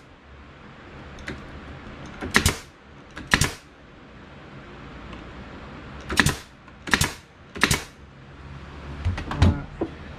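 Bostitch pneumatic nail gun firing nails into cedar fence boards: two sharp shots about a second apart, then after a pause three more in quick succession. A lighter knock follows near the end.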